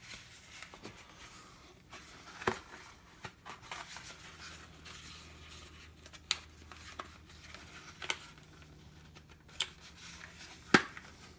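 Small objects and packaging being handled and searched through: scattered light clicks, taps and rustles, with one sharp click near the end. A faint low hum sits underneath through the middle.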